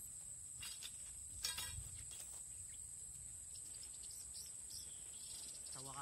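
Faint, steady high-pitched buzzing of insects in grassland, with a brief burst of rapid clicking about a second and a half in.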